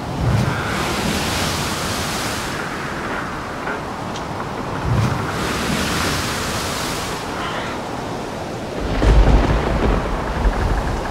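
Stormy lake soundscape: wind and waves breaking in two big swells, then a heavy low rumble near the end.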